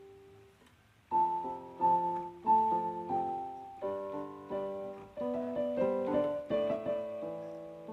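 Background piano music: a slow melody of single notes struck about every two-thirds of a second, each fading away. It comes in after a near-quiet first second.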